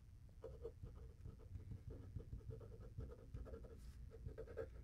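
Faint scratching of a pen writing by hand on a paper planner page, in short irregular strokes.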